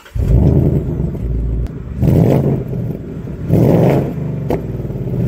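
Car engine revved in short blips about every second and a half, dropping back to a low idle between them.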